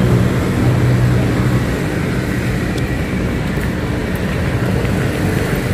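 Road traffic running steadily, with a deep engine hum that is strongest for the first two seconds or so.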